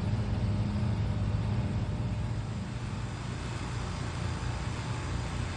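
Steady low motor hum with an even wash of outdoor background noise, easing off slightly after the middle.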